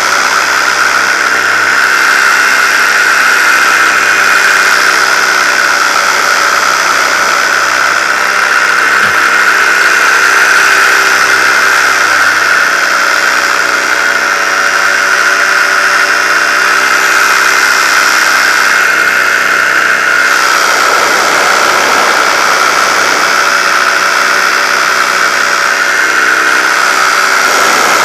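Paramotor engine and propeller running steadily in flight: a loud, even drone with a high-pitched whine on top.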